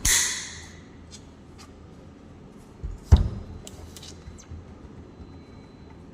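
Handling noises from an AED unit and its parts: a sharp rustling scrape at the start, a hard knock about three seconds in, and a few light clicks.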